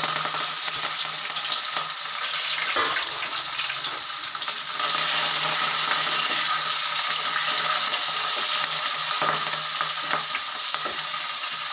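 Cumin, green chilli and chopped herbs (tulsi, mint, coriander, curry leaves) sizzling steadily as they fry in hot sesame oil in a kadai. The sizzle gets a little louder about five seconds in.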